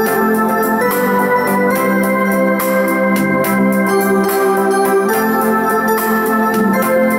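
Yamaha arranger keyboard playing a melody in an organ-like voice over held chords, with a light backing rhythm ticking along.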